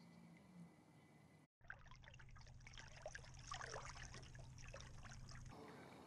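Faint trickling and dripping of water, starting after a brief dropout about a second and a half in and cutting off suddenly near the end.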